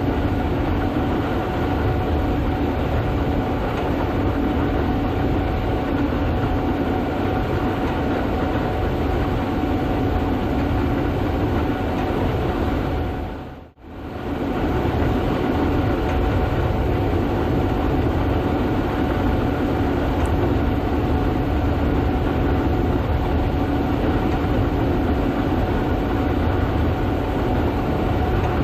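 Gleaner S98 combine running steadily under harvest load: a heavy, even drone with a constant hum. The sound briefly dips out about halfway through.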